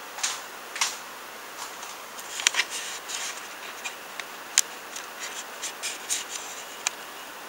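Scattered rustling and sharp clicks of someone moving about and handling things close to the microphone, over a steady low hiss; the sharpest clicks come about two and a half, four and a half and seven seconds in.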